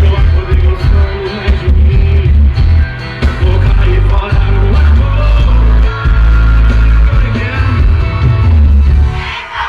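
A song with singing played loud through a car audio system, with heavy bass.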